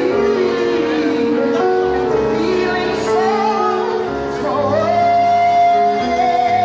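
Live vocal group singing in harmony over keyboard accompaniment through a PA system, with a woman's voice leading. In the second half one voice holds a long, steady high note.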